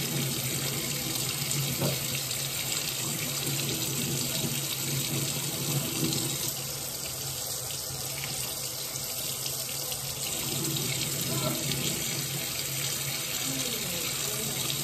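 Water running steadily from a bathroom tap into the sink while hands are rubbed and scrubbed under the stream to wash Gorilla Glue off the skin.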